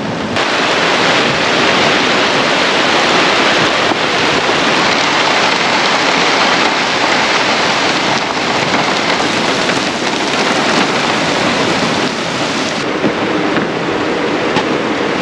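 Heavy rain pouring down steadily in a windy storm, a dense even hiss of rainfall.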